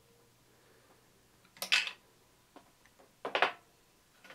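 Side cutters snipping through the leads of a yellow X2 mains suppression capacitor: two sharp snips about a second and a half apart.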